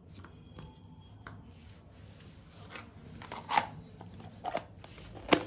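Handling of a plastic onion chopper being unpacked and fitted together: scattered light clicks and rubbing, with a few louder sharp clicks in the second half.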